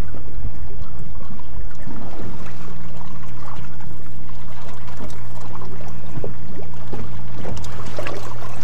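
Steady low hum of a boat motor with water splashing against the hull, and a spinning reel being cranked to retrieve the line.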